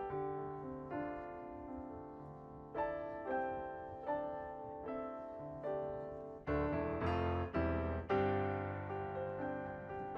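Slow, gentle solo piano background music, soft chords with sustained notes, growing louder with deeper notes for a moment around six and a half to eight seconds in.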